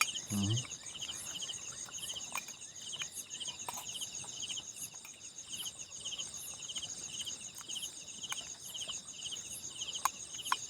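Night insect chorus, crickets chirping: a pulsed chirp repeating about twice a second over a steady high buzz, with a few faint clicks.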